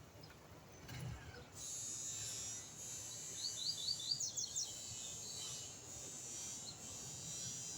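A songbird singing a quick run of about eight short rising chirps a little before midway, over a steady high-pitched hiss that comes in about one and a half seconds in.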